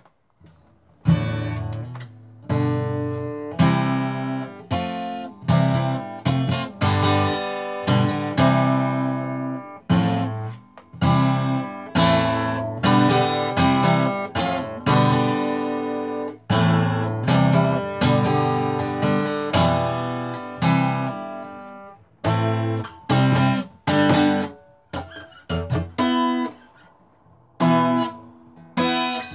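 Acoustic guitar strummed in chords, starting about a second in and going on in phrases with short breaks between them.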